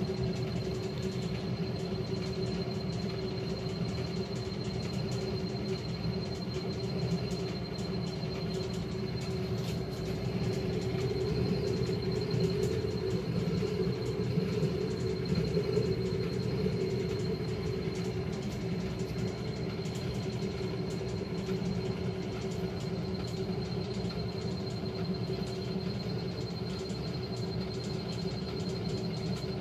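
1957 Blackstone 350 automatic washer spinning its stainless basket in the spin cycle: a steady mechanical hum with a thin high whine, growing a little louder around the middle.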